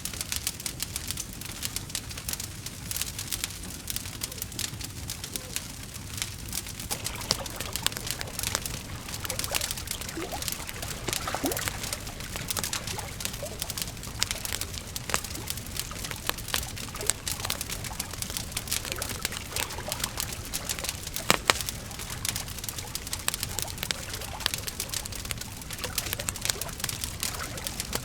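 Wood fire crackling, with dense small pops and snaps over a low rumble; one sharper pop about three quarters of the way through.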